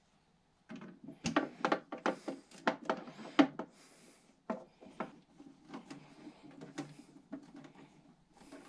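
Hands handling the parts of a partly assembled kayak crate: an irregular run of sharp clicks and knocks, densest in the first few seconds, then softer scattered knocks and light scraping.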